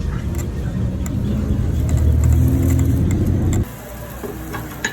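A vehicle's low, steady rumble, which cuts off abruptly about three and a half seconds in; a few light clinks follow.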